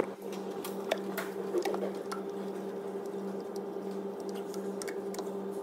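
Ignition lead boots being tugged off the spark plugs of a Ford Focus 1.6 Zetec engine: scattered light clicks, over a steady low hum.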